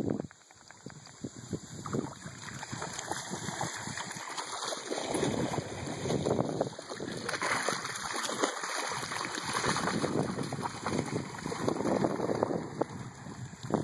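Australian cattle dogs splashing and wading through shallow creek water, in uneven bursts, with wind noise on the microphone.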